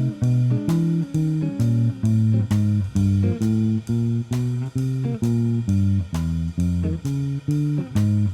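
Outro music: a guitar playing a walking bass blues in F, plucked notes stepping along about two a second.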